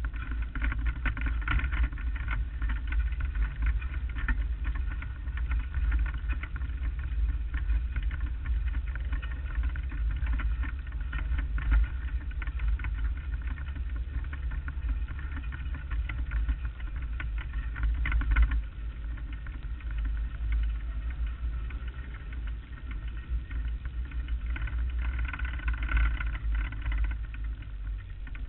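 Lightning Sprint race car's engine running at low speed as the car rolls, picked up by a camera mounted on the car, with heavy rumble. The sound drops off abruptly about two-thirds of the way through and stays lower afterwards.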